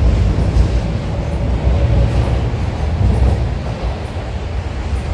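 MTR Kwun Tong line Q-Train passing through a station platform without stopping, a heavy low rumble with a faint steady whine partway through, easing off in the second half as it draws away.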